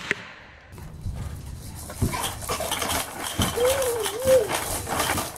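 A baby bouncing in an activity jumper: toy parts clicking and clattering, with one short wavering vocal squeal in two rising-and-falling arcs about three and a half seconds in.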